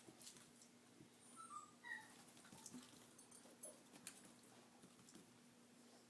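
Near silence with faint small animal sounds: a few brief high squeaks about one and a half to two seconds in, and scattered light clicks.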